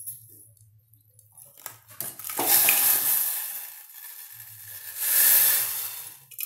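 Lumps of jaggery tipped into a hot stainless steel pot on a gas stove about two and a half seconds in, then water poured in over them around five seconds in, each setting off a hiss that fades over a second or so.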